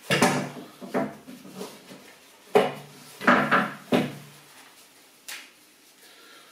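A Nash landing net pole knocking and sliding on a wooden table while the net mesh rustles as it is rolled up around the pole: a series of knocks and scrapes over the first four seconds, then a single click about five seconds in.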